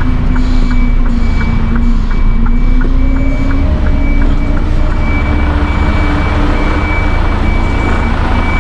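Mercedes-Benz Actros 510's straight-six diesel engine running at low revs as the tractor unit reverses an articulated trailer, heard from inside the cab. The revs rise slightly about three seconds in. A steady high warning tone sounds throughout, with a quick regular ticking over the first few seconds.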